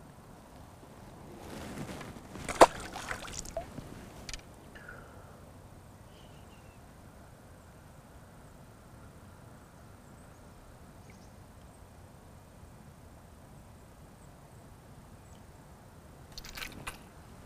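A brief flurry of water splashing and handling noise beside a boat, with one sharp knock, about two to four seconds in, as a small fish goes back into the water. A few soft clicks near the end.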